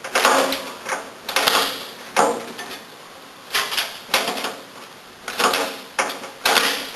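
Vacuum hose being pushed and twisted up into its threaded hose nut: a series of short rubbing and scraping noises, about eight in seven seconds, irregularly spaced.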